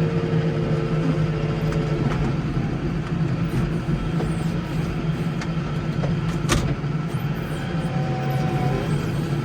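Case 115U garden tractor engine running steadily under load while clearing snow, with one sharp clank about six and a half seconds in.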